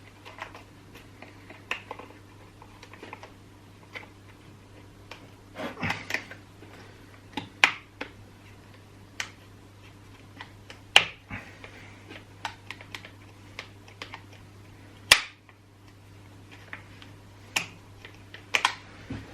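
Irregular clicks and knocks of small chainsaw parts being handled and fitted during reassembly, with two sharper knocks near the middle and about three-quarters through, over a faint steady hum.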